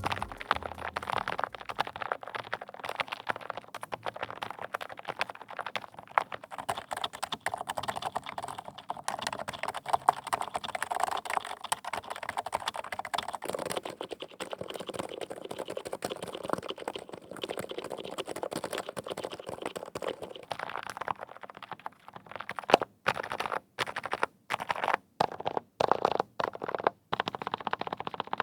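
Sho S60 V2 Topre-style 60% keyboard with 60 g carrot domes, an aluminium plate and lubed sliders being typed on: a fast, steady run of keystrokes, turning to slower separate presses with short pauses about 22 seconds in.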